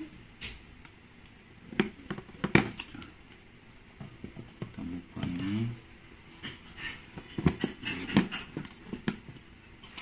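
Scattered small clicks and taps of hand tools and fingers on a tablet's casing and parts during disassembly, with a brief low whine about halfway through.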